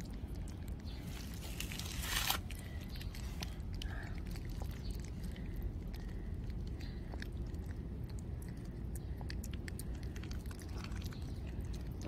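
Kitten chewing and smacking on soft wet cat food in a plastic bowl, a steady run of small wet clicks. A brief louder rustle about two seconds in.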